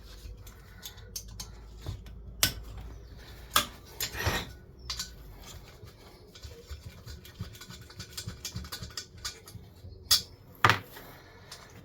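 Small metal clicks and taps of hand tools and loose parts being handled while Allen bolts are undone on a diesel heater's casing, with a few louder knocks.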